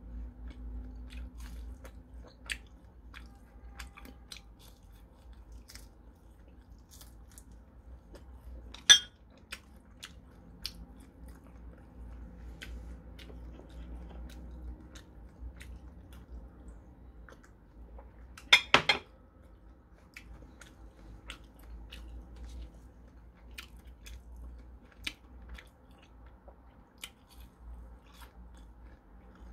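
Close-up chewing and biting of crispy batter-fried shrimp, with many small crunchy clicks. Two louder sharp cracks stand out, one about nine seconds in and a quick double one a little before twenty seconds.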